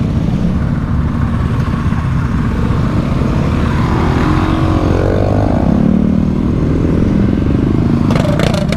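Engines of a group of gas dirt bikes and motorcycles running close by in a steady low rumble. One bike revs up and back down about four to five seconds in.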